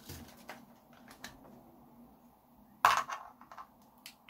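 Light plastic clicks and taps from a car smart key fob and its wired circuit board being handled on a desk, with one louder clack about three seconds in.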